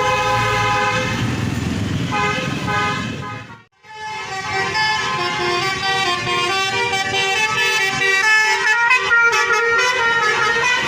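Tour bus 'telolet' multi-tone horns playing a tune of stepped notes over a low engine rumble. The sound breaks off abruptly for a moment about four seconds in, then the horn tune resumes.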